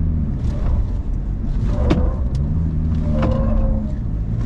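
Toyota Hilux Revo pickup's diesel engine pulling through a slalom at about 60 km/h, its note rising and falling as the driver works the throttle, with three short, sharp chirps.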